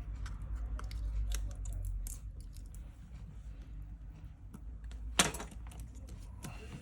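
Small clicks, taps and scrapes of repair tools on the open iPhone 6s, with one sharper click about five seconds in.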